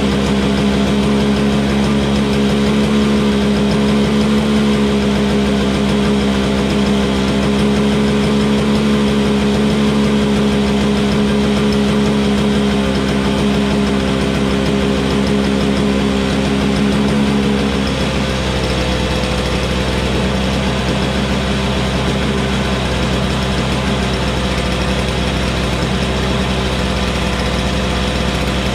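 Single-stage Toro Snow Commander snowblower's two-stroke engine running steadily. About two-thirds of the way through, its note shifts and the level drops slightly.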